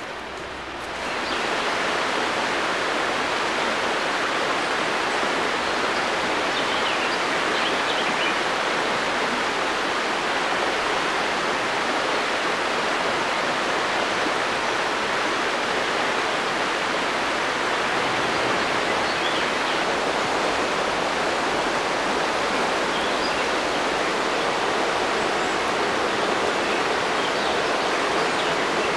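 Shallow river rushing over rocks in rapids: a steady, full rushing of water that swells up about a second in and then holds level.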